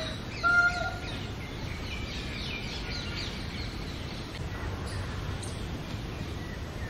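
Indian peafowl giving one short, loud call about half a second in, followed by faint high twittering of small birds over steady background noise.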